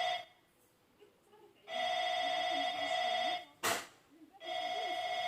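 Electronic ringing tone sounding in repeated bursts of about a second and a half with short gaps, and one sharp click between the bursts.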